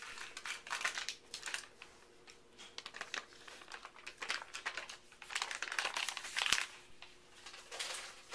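Plastic mold liner crinkling as it is peeled off a freshly unmolded loaf of soap, in irregular bursts, with one sharp tap about two-thirds of the way through.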